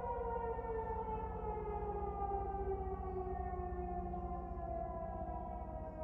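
Federal Signal 2001 electromechanical tornado siren winding down, its wail sliding slowly and steadily lower in pitch over a low rumble.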